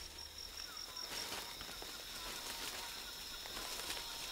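Tropical rainforest ambience: a steady, high-pitched insect drone with faint bird calls.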